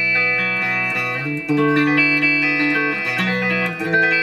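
Electric guitar played through an Electro-Harmonix Deluxe Electric Mistress flanger in filter-matrix mode, with a replacement SAD1024A bucket-brigade delay chip fitted. A few held notes change every second or so, coloured by a fixed, very short delay that gives a static comb-filter tone with no sweep.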